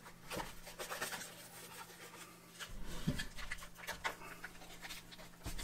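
Hands working an old cardboard carton open and pulling at the foil-wrapped ration block inside: soft, scattered rustles and scrapes of cardboard and foil.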